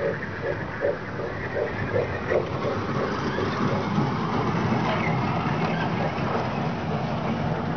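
Small children's amusement train passing close, its motor running with a steady low hum that swells from about three seconds in. A rhythmic pulsing, about two or three beats a second, is heard for the first couple of seconds.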